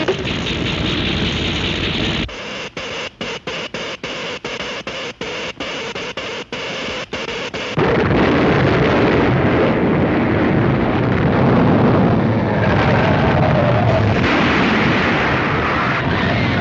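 Cartoon sound effects of an electric earthquake machine at work: a dense noisy drone that, after about two seconds, breaks into a rapid stutter of about two pulses a second. About eight seconds in, a louder, heavy earthquake rumble takes over, with orchestral music swirling over it.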